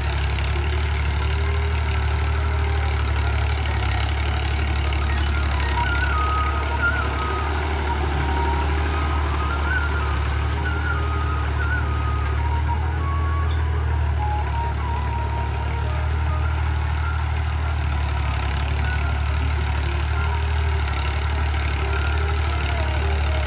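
Ghazi farm tractor's diesel engine running steadily under load, pulling a tined plough through the soil; a low, even drone with no breaks. Faint high chirps sit over it between about 6 and 12 seconds in.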